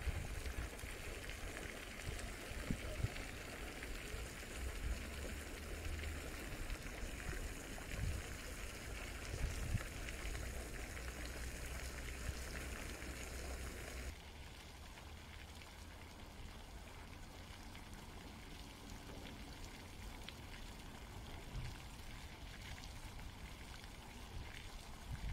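Steady rush of running water with a low rumble underneath. The noise drops off abruptly about fourteen seconds in, and a fainter hiss continues.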